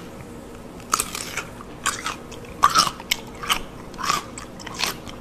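Crunching bites and chewing of a whole pickled cucumber, about seven sharp crunches at an uneven pace.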